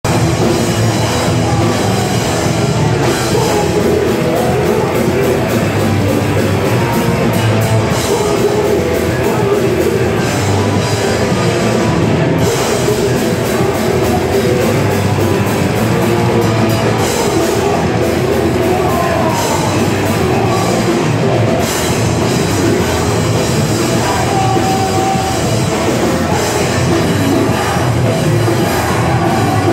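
Live hardcore band playing loud, fast rock with a drum kit and crashing cymbals, continuous with no breaks.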